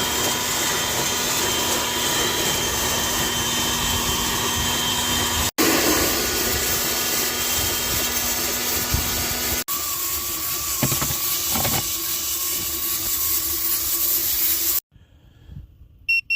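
Electric leaf blower running flat out, a steady rush of air with a whine, blowing through the rotating roaster drum to cool freshly roasted coffee beans. It cuts off abruptly near the end, and a few short electronic beeps follow.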